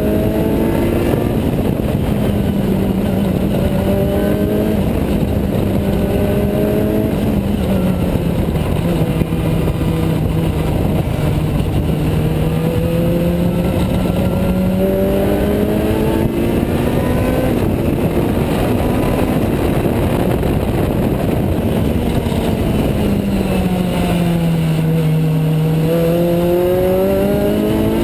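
Juno SSE race car's Honda Type R four-cylinder engine at high revs, heard from inside the cockpit under heavy wind and road noise. The pitch eases down about a third of the way in and again shortly before the end, then climbs each time as the car accelerates out of the corners.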